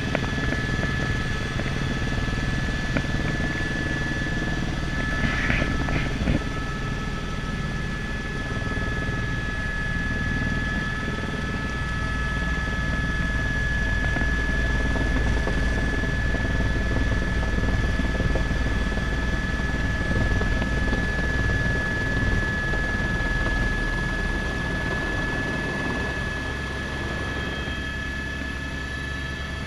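Helicopter in flight heard from inside the cabin: the rotor and turbine engine run steadily, with a constant high turbine whine over a low rumble. The helicopter is descending to land on a grass helipad, and the low rumble shifts in the last few seconds as it comes down over the grass.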